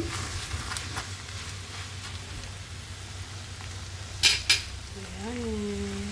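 Udon noodles with prawns and vegetables sizzling in a cast-iron skillet as they are stir-fried with tongs, with two sharp clacks of the tongs against the pan about four seconds in. A short tone rises and then holds near the end.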